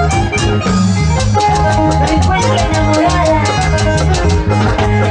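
Live band playing upbeat Latin dance music, with a repeating bass line under a steady, fast percussion beat and a melody line above.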